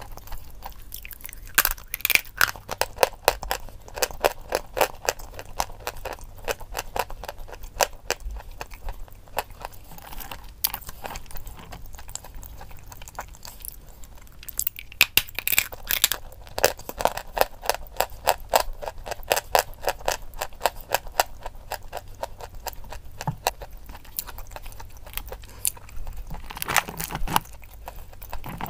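Chalk being bitten and chewed: dry crunching and crackling that comes thickest in three spells, near the start, midway and near the end.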